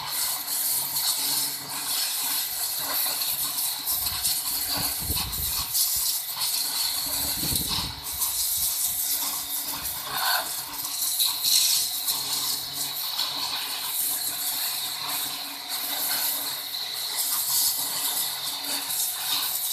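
Electric pressure washer's high-pressure water jet blasting onto a brick at close range: a steady loud hissing spray with irregular spattering, over a faint low hum.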